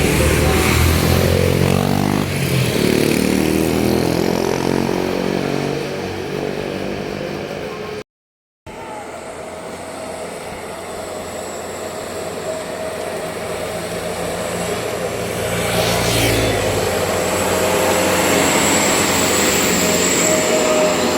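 Tour bus passing on the road while its telolet multi-tone horn plays a stepped tune over the engine for the first several seconds. The sound cuts out briefly about eight seconds in, then a vehicle's engine runs on, with another vehicle passing near the end.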